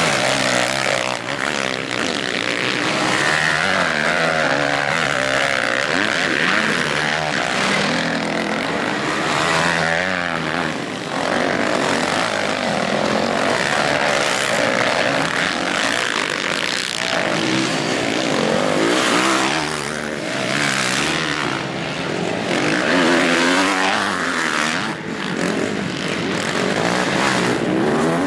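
Motocross bike engines revving hard, their pitch climbing and falling again and again with throttle and gear changes as several bikes ride past, with no break in the engine noise.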